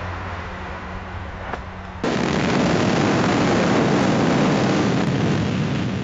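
Car-crash sound effect: the tail of a highway collision fades over a steady low hum. About two seconds in, it cuts sharply to a second, louder car-crash effect, a sustained dense crashing noise.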